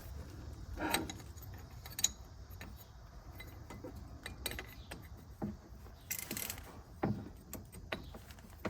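Faint metal-on-metal clicks and knocks of a wrench being worked on a seized fitting that will not budge, with a short scrape about six seconds in.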